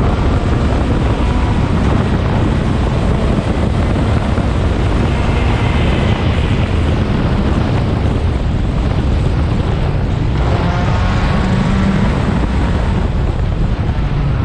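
A 1600cc race car's engine running hard at speed, buried under heavy wind noise on the microphone. The engine note climbs about ten seconds in as the car accelerates.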